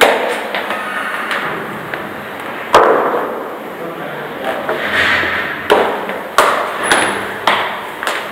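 High heels clicking on stone stair steps as a woman climbs. Each step is a sharp, echoing click; there are about five, unevenly spaced, with three close together near the end.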